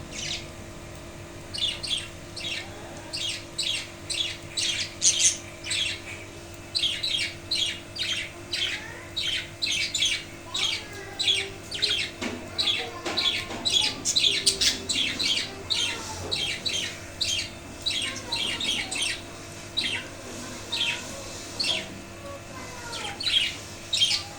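Budgerigars calling: a long run of short, sharp squawking calls repeated about twice a second, with softer twittering chatter in between.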